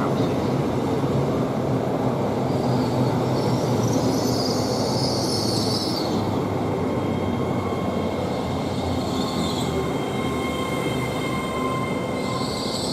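LNER Class 801 Azuma electric train running into the platform and slowing, a steady rumble with a thin high squeal from its brakes and wheels.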